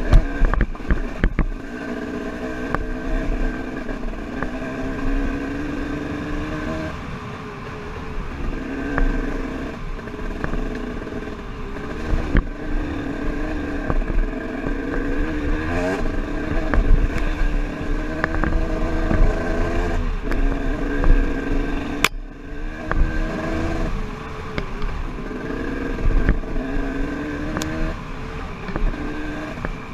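KTM 300 XC two-stroke dirt bike engine running through the gears on a trail ride, its pitch rising and falling as the throttle is rolled on and off. Scattered knocks and clatter come from the bike going over rocks and bumps, with one sharp knock about 22 seconds in.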